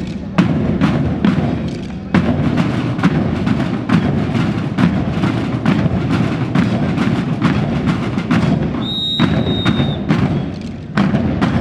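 Parade band music with a steady marching drum beat, about three to four strokes a second. A high whistle sounds for about a second near the end.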